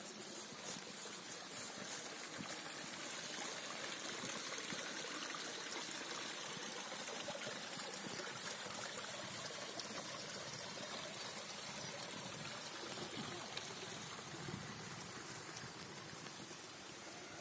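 Steady trickle of spring water running into a small stone-walled pool and out along a narrow runnel in the grass.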